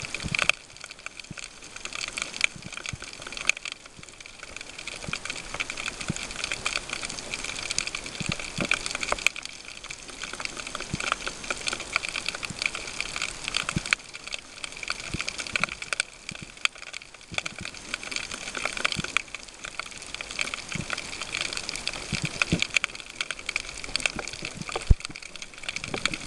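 Underwater ambience: a steady hiss filled with a dense, irregular crackle of tiny clicks.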